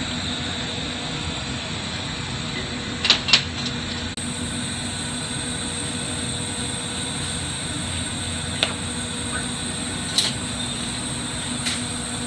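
Steady hiss and hum of a glassblowing hot shop's torches and ventilation running, broken by a few sharp clicks, two of them close together about three seconds in.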